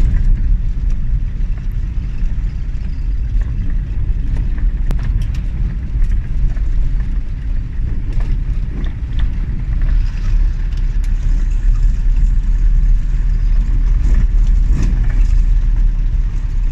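Steady low rumble of a safari vehicle driving over rough ground, with occasional light knocks and rattles.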